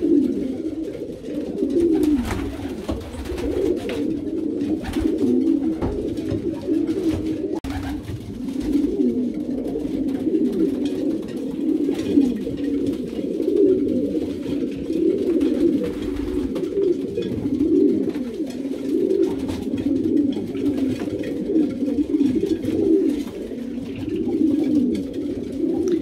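Racing pigeon cocks cooing and calling together, a dense unbroken chorus of overlapping low coos: widowhood cocks excited by the hens being let in, calling them to the nest boxes.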